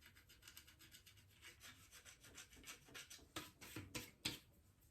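Faint rubbing and scratching of hands gathering hair up, a quick run of short scratchy strokes with a few sharper ones about three and a half to four seconds in.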